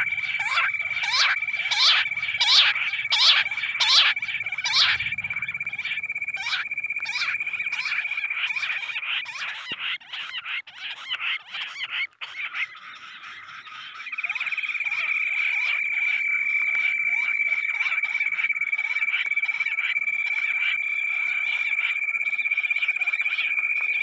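Bush quail calls played through a hidden loudspeaker as a hunting lure: a rapid series of short falling whistled notes, loudest over the first few seconds. Under them runs a steady high whine that breaks off about ten seconds in and comes back a few seconds later.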